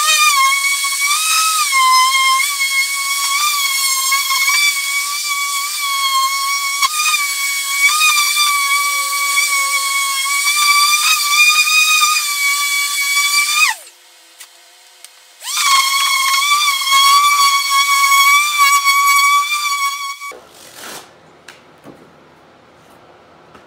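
Dual-action sander running with a steady high whine as it sands bare aluminium, the pitch wavering slightly as it is worked over the panel. About 14 seconds in it winds down and stops, starts again a second and a half later, and shuts off for good about 20 seconds in, leaving a few light clicks.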